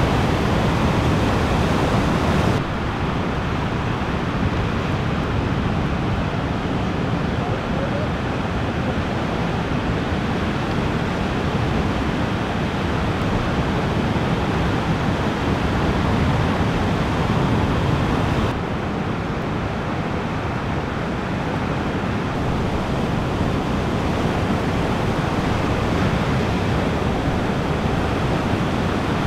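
Ocean surf washing and breaking, with wind rumbling on the microphone. The sound shifts abruptly twice, becoming slightly quieter and duller each time, where clips are cut together.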